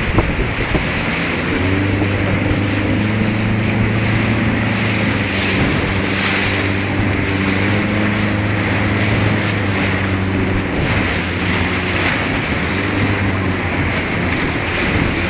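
Wind buffeting the microphone and water rushing and spraying past at planing speed, with the steady drone of a motorboat engine underneath from about two seconds in.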